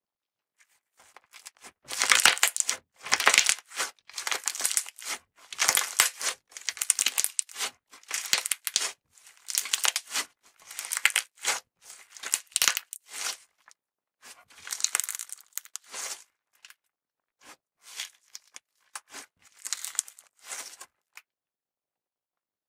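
Purple glitter-and-sequin slime (S.slime's 'NEW Leopard Bijou') being squeezed, folded and pressed by hand, giving bursts of sticky clicking and crackling with short pauses between. It starts about two seconds in and grows sparser near the end.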